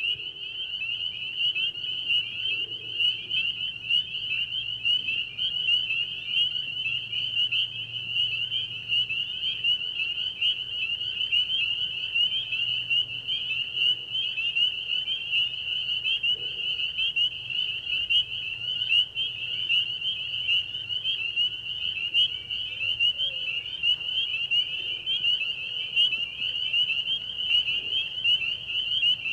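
A chorus of crickets chirping in a dense, steady, high-pitched trill that never lets up.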